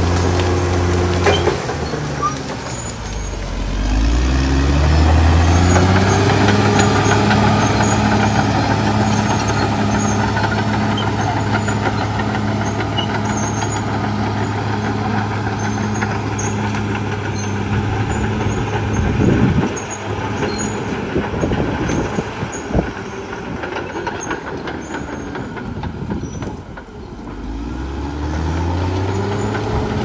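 Caterpillar D6R XL bulldozer's diesel engine working under load, its pitch dipping about three seconds in, holding steady, then dipping and rising again near the end. A few metallic clanks from the machine break through.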